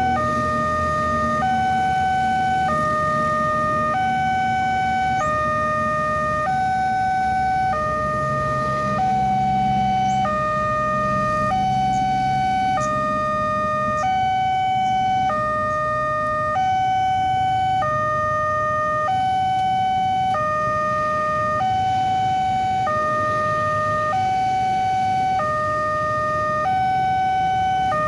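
Railway level-crossing warning alarm from the loudspeaker on the crossing signal post: an electronic two-tone signal alternating steadily between a higher and a lower note about every 1.2 seconds. It sounds with the barrier down and the red lights flashing, warning that a train is approaching.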